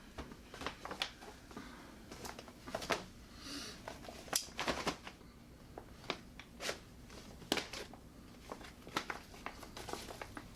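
Thick plastic MRE pouch crinkling and rustling as it is handled and opened, with scattered sharp crackles.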